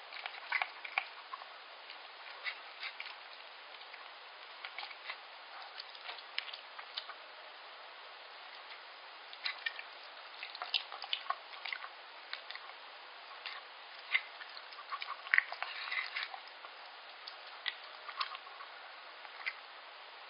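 Yorkshire Terrier eating wet liver pâté from a stainless steel bowl: irregular wet smacking and licking clicks, busiest in the middle stretch, over a faint steady hiss.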